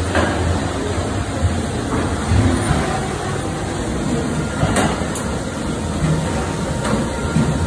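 Engel Auto-Seamer 516 duct seaming machine running, working along a rectangular sheet-metal duct section with a steady mechanical noise and a low hum. Two sharp clicks come about five seconds in.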